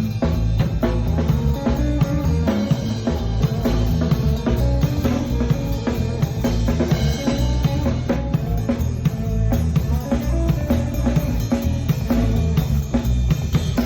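A live band playing at a sound check: a drum kit keeps a steady beat over heavy bass, with other instruments in the mix.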